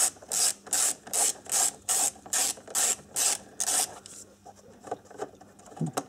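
Ratchet wrench with a size 8 socket undoing a bolt: a rapid run of about ten short ratcheting rasps, about two and a half a second, one for each back-swing of the handle, stopping about four seconds in as the bolt comes loose.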